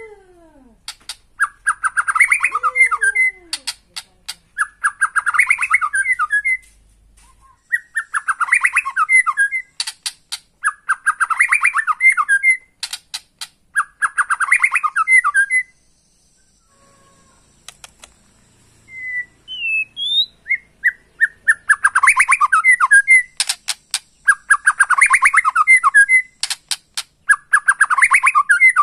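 White-rumped shama calling: a harsh, rapid rattling phrase repeated about once every two seconds, with sharp clicks between phrases. About two-thirds of the way through the phrases pause for a few rising whistled notes, then start again.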